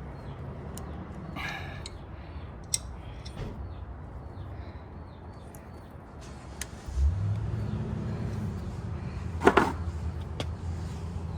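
Scattered clicks and knocks from hand work on the carburetor intake boots, the loudest a sharp knock about two-thirds of the way through. Under them runs a low steady hum that grows louder about seven seconds in, and faint birds chirp early on.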